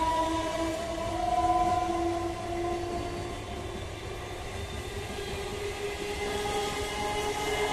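Electric multiple-unit local train running past, a low rumble under a steady whine from its traction motors that drifts slowly in pitch.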